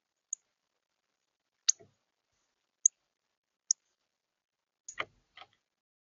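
Northern cardinal giving several sharp, high chip notes a second or so apart, with a couple of knocks near the end.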